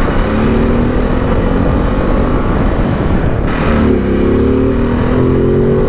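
Ducati DesertX Rally's 937 cc Testastretta V-twin pulling hard under acceleration, heard from the rider's seat over wind noise. About three and a half seconds in the revs dip briefly, then climb again.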